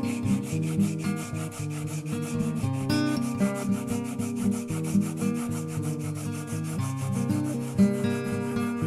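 A plane iron rubbed back and forth on a wet 300-grit diamond sharpening stone: the coarse first stage of sharpening the blade. Background music with held notes plays under it.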